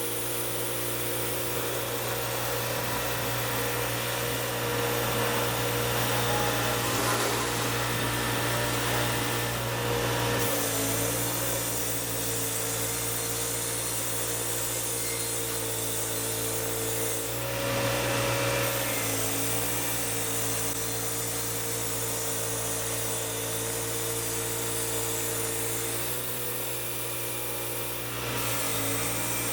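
Portable sawmill running and cutting a mesquite log into slabs: a steady machine drone whose pitch and level shift several times as the cut goes on.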